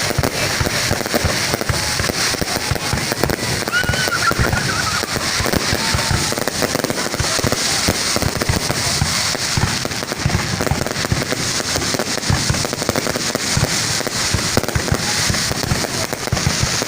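Fireworks going off in a dense, unbroken stream of bangs and crackles over a crackling hiss.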